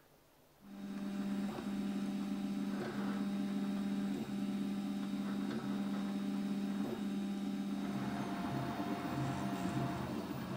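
Stepper motors of a Prusa i3 3D printer whining at a steady pitch as the print head moves back and forth, with a brief break about every second and a half at each change of direction. About eight seconds in, the pitch drops and the tone turns choppy. It starts after about half a second of near silence.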